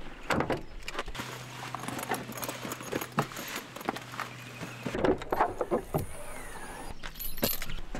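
A pickup truck door is unlatched and opened, then come a series of clicks, knocks and rustles as things are handled in the cab and at the camper shell's rear hatch. A low steady hum runs for a few seconds in the middle.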